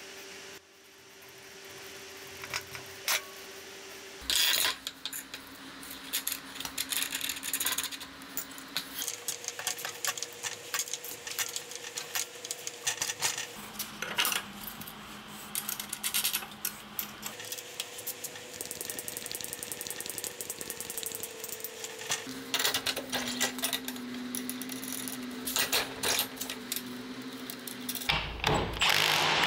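Metal clinks, clicks and rattles of bike parts and hand tools as a mini bike's steering bearings, stem and front forks are fitted, over a steady hum that jumps in pitch every few seconds. Near the end a power tool starts running loudly.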